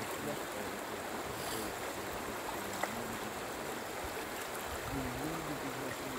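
Steady rush of flowing river water, with a faint voice near the end.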